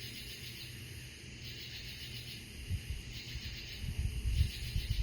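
Night insect chorus: a steady high, pulsing trill. Low rumbling thumps on the microphone come in toward the end.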